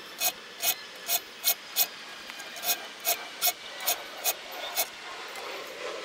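Hand file stroking across the teeth of an 1886 Henry Disston & Son tenon saw to sharpen them: short, sharp file strokes about two to three a second, with a brief pause near the middle, stopping about five seconds in.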